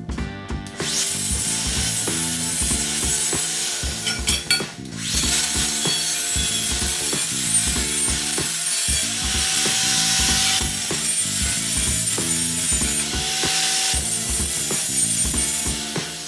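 Angle grinder cutting steel box-section tubing: a steady harsh grinding, its whine sagging in pitch under load now and then, with a brief lull about four to five seconds in.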